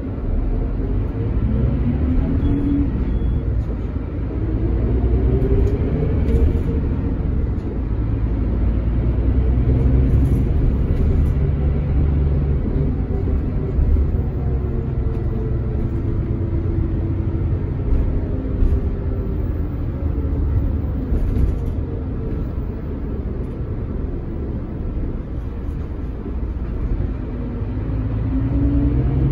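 Scania K400IB bus's 400 hp straight-six diesel engine running as the bus drives, with a steady low rumble. The engine note rises in pitch as the bus accelerates, about two seconds in, again around five seconds in, and near the end.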